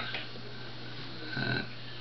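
A quiet room with a steady low hum, a short sharp click at the start, and a brief low murmur of the voice about one and a half seconds in.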